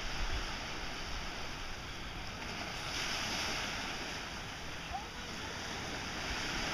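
Small waves washing onto a sandy beach, a steady surf hiss that swells about halfway through.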